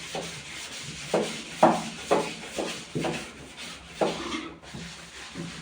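A series of light knocks and rubbing, like objects being handled and set down, about two a second for a couple of seconds, then one more a second later.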